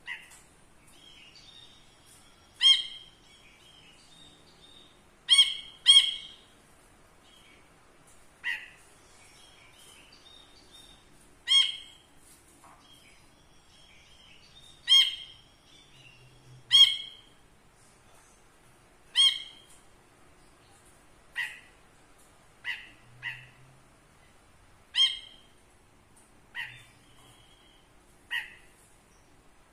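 Caged brinji kelabu, a Hemixos bulbul, calling: about fifteen short, loud, sharp notes every two seconds or so, with soft twittering between them.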